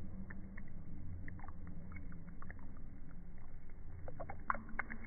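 Water poured from a plastic bottle splashing onto carpet treated with a water-repellent coating, heard as scattered light ticks and splats that grow busier near the end. Under it runs a steady low rumble.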